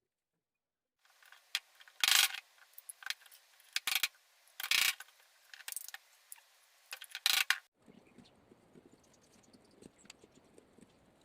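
Irregular metallic clicks and rattles, with four or five louder clacks among them, as of small metal drill parts or a gear mechanism being worked by hand. Near the end it gives way abruptly to a quieter background with faint ticks.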